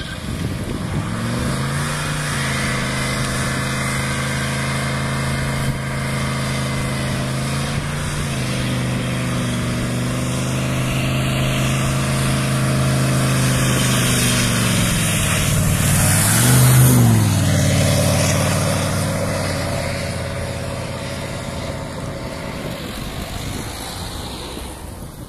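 GMC 6.5-litre turbo-diesel V8 held at high revs for a burnout, spinning its rear tyres on wet tarmac. The engine note dips and climbs back a few times, is loudest about two-thirds of the way through, then fades.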